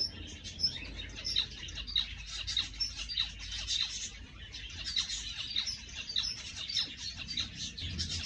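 Aviary zebra finches chirping: a dense stream of short, high calls, several a second, overlapping from a number of birds.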